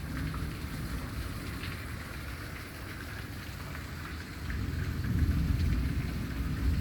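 Torrential tropical-storm rain pouring down and splashing on surfaces as a steady hiss, with a low rumble swelling about two-thirds of the way in.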